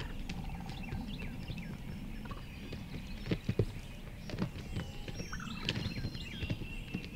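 Quiet field ambience with scattered faint, high bird chirps and calls, and two soft knocks in quick succession a little over three seconds in.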